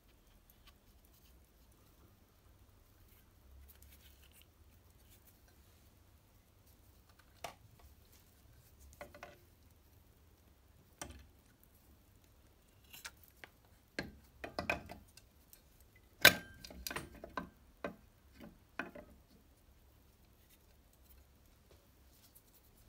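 Scattered small metallic clicks and knocks of Vespa engine parts being handled on the bench, sparse at first and then coming in a cluster. The loudest is a sharp metal knock about two-thirds of the way through, followed by a brief ring.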